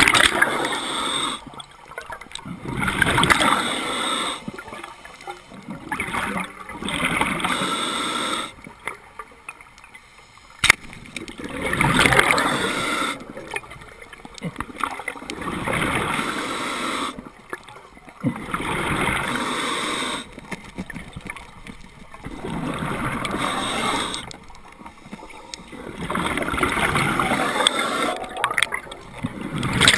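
A diver's exhaled breath bubbling out of a scuba regulator underwater, a gurgling rush about every three to four seconds with quieter breaths in between. A single sharp click about ten seconds in.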